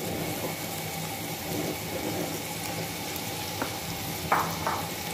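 Raw beef mince sizzling in hot oil in a nonstick frying pan as a silicone spatula stirs it, with a few short knocks of the spatula against the pan near the end.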